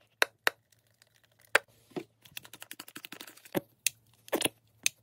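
Plastic hand-soap bottles handled over a small glass bowl, shaken, squeezed and pumped to get thick soap out. Scattered sharp clicks and taps, with a stretch of faint crackle in the middle, over a faint steady hum.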